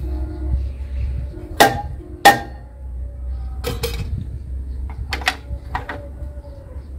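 Sharp metallic clanks and knocks from hands and tools working on a walking tractor's stopped engine: two loud clanks about two seconds in, then several lighter knocks in pairs.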